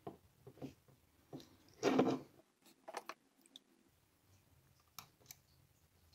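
Handling noises from work on a hair dryer: a string of small clicks and knocks, with a louder scraping rustle lasting about half a second around two seconds in.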